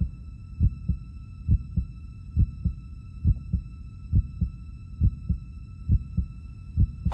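Heartbeat sound effect: eight slow, even lub-dub pairs of low thumps, about seventy beats a minute, over a faint steady high-pitched whine.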